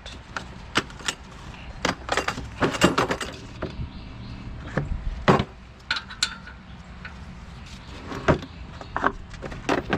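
Metal hand tools clinking and clanking against each other and against the brake parts, in an irregular run of sharp clicks and clanks. The loudest strikes come about three and five seconds in.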